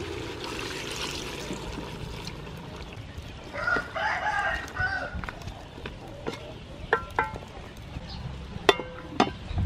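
A rooster crows once about halfway through and gives a few short calls near the end, over the steady sizzle of chicken curry frying in a metal pot as a wooden spatula stirs it.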